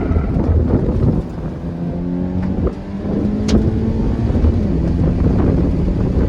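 2013 Scion FR-S's flat-four engine through a TRD exhaust being driven hard, its pitch climbing about two seconds in and then holding steady, under heavy wind noise on the microphone. A single sharp click about halfway through.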